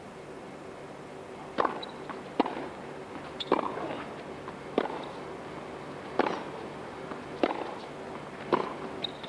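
Tennis rally: a ball struck back and forth by rackets and bouncing on a hard court, giving sharp pops roughly once a second over a faint steady arena hush.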